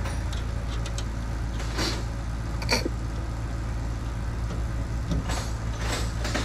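Steady low hum in a shop, with a few short metallic clicks and rattles as a nut and washers are fitted to a fuel pump mounting bracket under a car.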